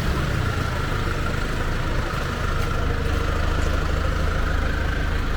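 A motor vehicle's engine idling steadily close by, a low even rumble.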